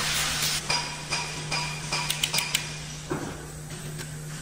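Hand tools on the flywheel housing bolts of a Komatsu SA6D125 diesel engine: a quick rasping ratchet at first, then a string of sharp metal clicks and clinks with a short ring. A dull knock comes about three seconds in.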